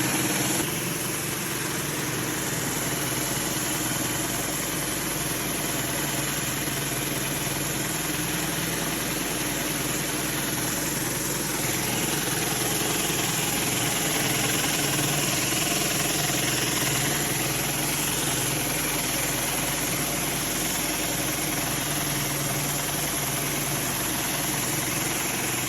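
Pressure washer engine running steadily under load, with the hiss of water spraying through a 36-inch Whisper Wash Maxima surface cleaner working concrete. A single 4.7 gpm pressure washer does not give enough flow for this surface cleaner.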